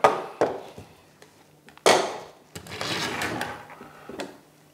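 Plastic parts of a small aquarium protein skimmer being handled and set down on a wooden tabletop: a few sharp knocks, the loudest about two seconds in, followed by a scraping rustle and a last small click.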